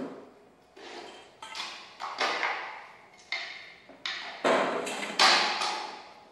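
Irregular series of sharp knocks and clatters, about ten in a few seconds, each dying away over half a second or so, played back through a sculptural loudspeaker; the loudest comes about five seconds in.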